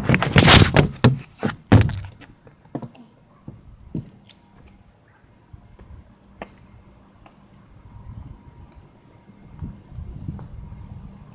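Loud crackling bursts of noise, then from about two seconds in a bird chirping over and over: short, very high-pitched chirps a few times a second, at an uneven pace.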